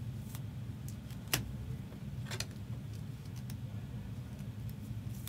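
Scattered light clicks and taps, the sharpest about a second in, over a steady low hum.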